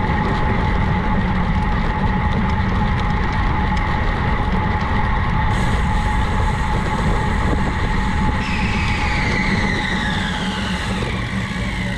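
Steady rush of wind and road noise from cycling on a road, with a steady hum. About eight seconds in, a whine starts and falls steadily in pitch over the following few seconds.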